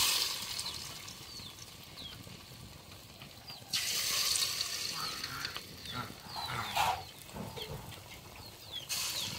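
Lumps of banana and wheat-flour batter dropped by hand into hot oil in an aluminium kadai. Each drop sets off a burst of sizzling that settles back to a steady bubbling fry; this happens four times, with the longest burst about four seconds in.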